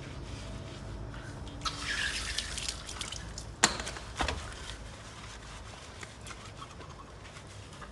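Water dripping and splashing on a wet tiled floor while a young chimpanzee's soapy fur is rubbed by hand, with a hissing, rubbing stretch about two seconds in and a sharp knock a little over three and a half seconds in.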